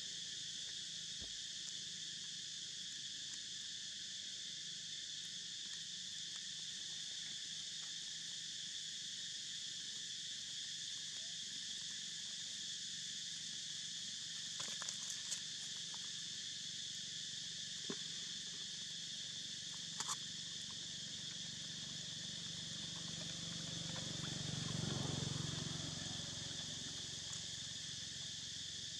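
Steady high-pitched drone of an insect chorus. A few sharp clicks come about halfway through, and a low rumble swells and fades a few seconds before the end.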